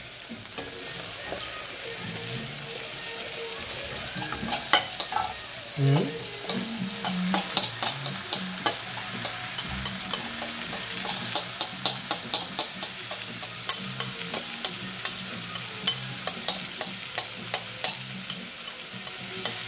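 Leftover vegetables sizzling in a frying pan, with a metal fork clinking and scraping against a ceramic bowl as the leftovers are scraped out into the pan. From about six seconds in there are sharp clinks, about two a second.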